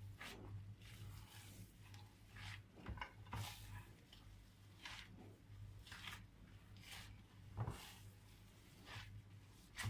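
Hands working raw minced meat: soft, irregular wet squishes every half second to a second, over a low steady hum.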